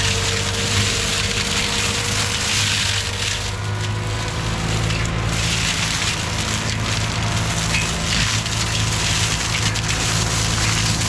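Skid steer's diesel engine running steadily under load while a drum-type forestry mulcher head grinds and shreds brush and wood, a rough crunching noise over the engine's hum.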